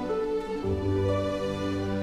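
Background music of slow, long-held notes, changing to a new chord about half a second in.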